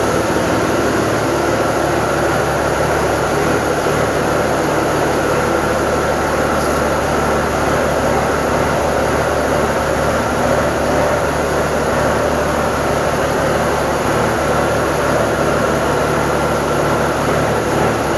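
A 1956 Peterbilt 351's engine idling steadily.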